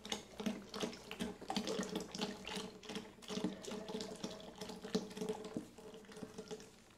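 Half a litre of Carnation milk poured into a container of blended strawberry and banana: a steady run of liquid splashing and gurgling that tapers off near the end as the last of it drains out.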